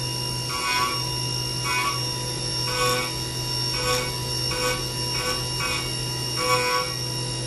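CNC mill's carbide helical end mill roughing 12L14 steel at high feed. A steady spindle whine runs under a ringing, pitched cutting note that swells about once a second as the tool bites into the steel.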